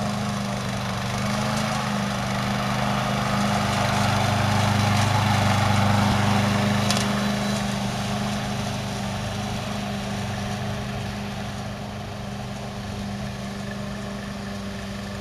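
Gas engine of a hybrid remote-control slope mower running steadily while the mower works on a wet, roughly 30-degree slope. It grows louder a few seconds in and eases off slightly after about seven seconds.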